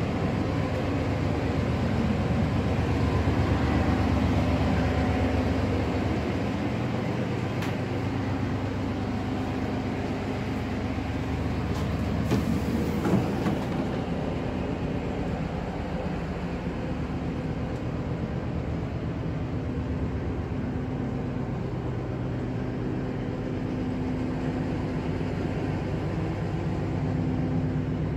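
MR-class diesel multiple unit under way: its diesel engine drones steadily under the rumble of the wheels on the track. The drone swells about four seconds in, then settles, with a couple of short knocks around the middle.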